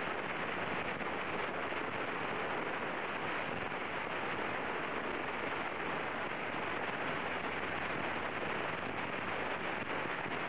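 Steady cockpit noise of a Diamond DA40 in flight: engine and airflow blending into an even rush with no distinct beat or change.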